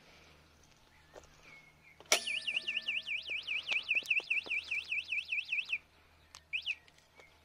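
DYU V1 e-bike's built-in anti-theft alarm sounding: an electronic siren warbling up and down about four times a second. It starts suddenly about two seconds in and cuts off abruptly about three and a half seconds later.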